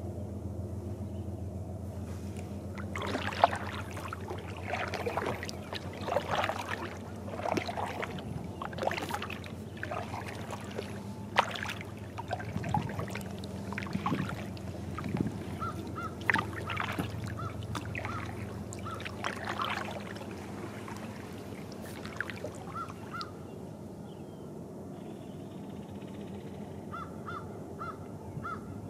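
Crows cawing repeatedly, many harsh calls in irregular runs that die away about two-thirds of the way through. Under them is a steady low wash of lake water against a kayak hull, and near the end a faint series of short, evenly spaced high notes.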